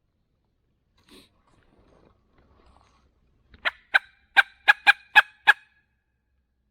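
A turkey tube call blown in a quick run of seven sharp hen-turkey notes over about two seconds, cutting to provoke a shock gobble, after a little faint rustling.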